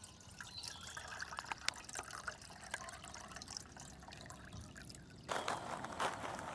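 Faint trickling and dripping of water with small clicks, then a louder crackling noise from about five seconds in.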